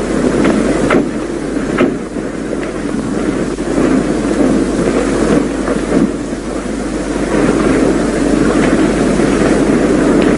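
Car engines running and passing traffic, a steady rumble with a few sharp clicks.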